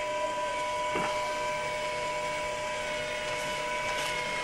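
Home-built Lyman V5 filament extruder dry running with no plastic fed: its stepper motors turn the auger and winder with a steady whine of several held tones over a low even hum. There is a light tap about a second in.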